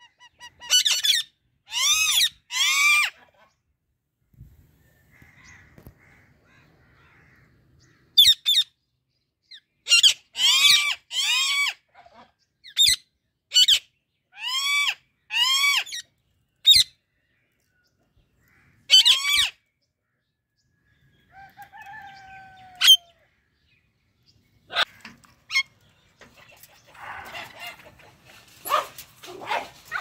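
Parrots giving loud, harsh screeching calls, singly and in quick runs of two or three, each call arching up and down in pitch. A softer falling whistle comes about 22 seconds in, and looser chatter follows near the end.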